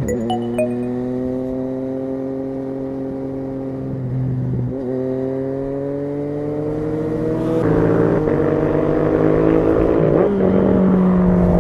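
Triumph Street Triple 765's three-cylinder engine pulling under acceleration, its pitch climbing steadily and then dropping sharply three times as it shifts up through the gears. Wind noise builds and the sound gets louder in the second half.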